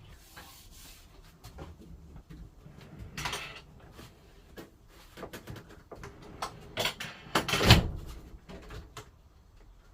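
Handling noises: scattered knocks and clicks, a short scrape about three seconds in, and a louder clunk-and-clatter lasting about a second near the three-quarter mark.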